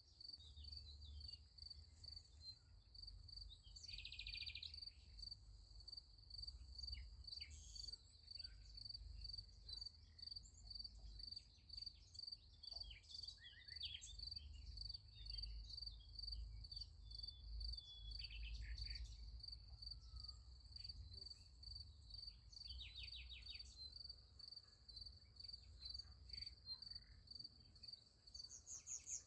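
Crickets chirping in a steady, evenly pulsed high trill, with short bird calls coming in now and then and a faint low rumble underneath.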